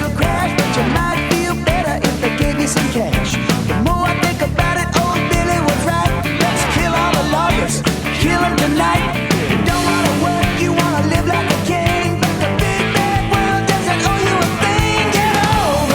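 Rock music with a steady beat, drums, guitar and a singing voice.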